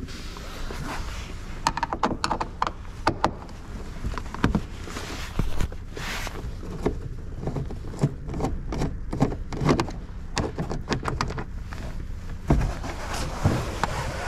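Irregular clicks, taps and knocks of a screwdriver and plastic trim being worked at a car's door panel.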